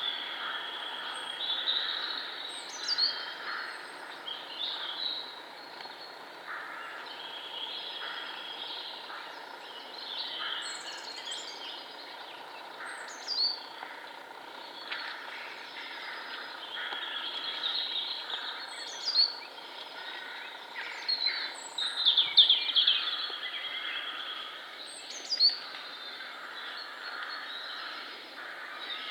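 Several birds singing in woodland, one repeating a short high note that drops in pitch every few seconds, over a steady low background hiss.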